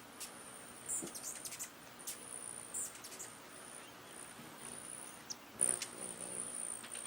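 Thin, very high-pitched calls of small backyard birds, a string of short held notes with a few sharp clicks among them; the loudest call and click come a little before the end.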